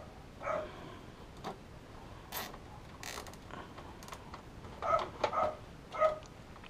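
Plastic cable ties clicking and ratcheting as they are handled and pulled tight in a PC case, in a few separate sharp clicks and short rattles. A dog yips several times, loudest after about five seconds.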